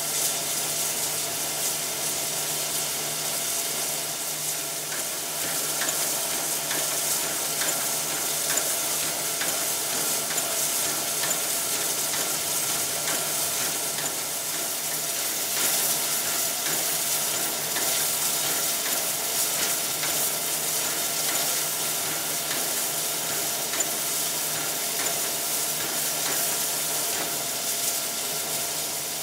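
Steam hissing and sputtering from a standing Victorian Railways J-class oil-fired steam locomotive as steam escapes around its cylinders and wheels, with a faint steady hum underneath.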